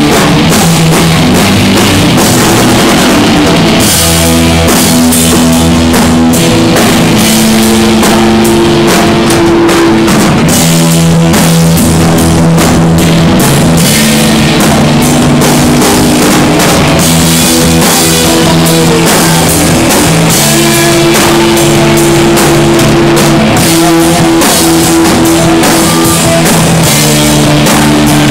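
Rock band playing live and loud: an electric guitar riff in long held notes that change every second or two, over a drum kit with steady, busy cymbals.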